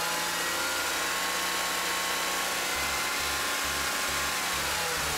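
BMW E39 528i's 2.8-litre inline-six engine running above idle, its pitch drifting slightly.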